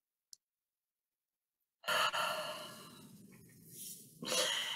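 A woman's long audible sigh, starting suddenly about two seconds in and trailing off, followed by a quick breath in near the end.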